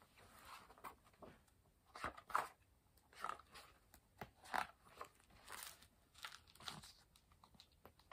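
Faint rustling and crackling of a hardcover picture book being handled and opened: the cover and stiff pages brushing and scraping in a string of short, scattered sounds.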